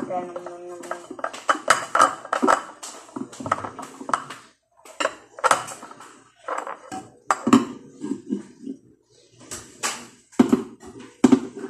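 Dishwashing by hand: a soapy sponge scrubbing a ceramic bowl, with irregular clinks and knocks of the dishware and a few short pauses.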